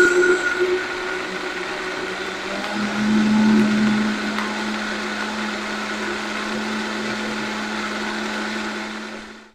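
Vitamix blender running, puréeing roasted tomatoes and vegetables with plant milk and broth into soup. Louder for the first moment, it settles into a steady whir with a low hum, then winds down and stops near the end.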